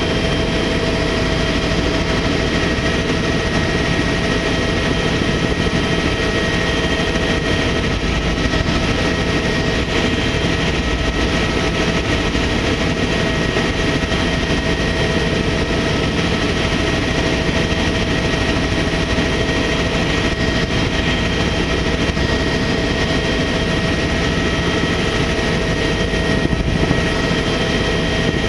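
Helicopter in steady flight: turbine engine and rotor noise running evenly, with a constant high whine over it.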